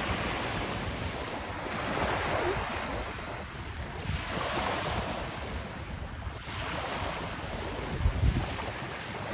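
Small waves washing in over a shallow shoreline, swelling and fading every couple of seconds, with wind buffeting the microphone and a stronger gust near the end.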